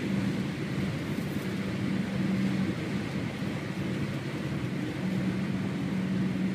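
Cabin noise inside a 2003 BMW E39 540i cruising at about 105 mph: steady road and wind noise with a low, even hum from the car that swells and fades a few times.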